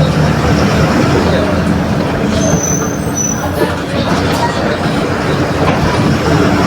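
Mercedes-Benz OF-1721 BlueTec 5 bus diesel engine running steadily, with the bus body's noise around it. A brief high-pitched squeal comes in about two and a half seconds in.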